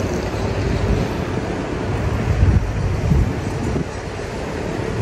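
Wind buffeting the microphone in a wavering low rumble, mixed with the noise of road traffic on the seaside road below.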